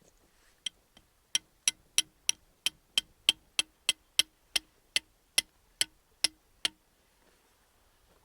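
A series of about sixteen sharp, regular clicks, roughly three a second, each followed by a brief low ring.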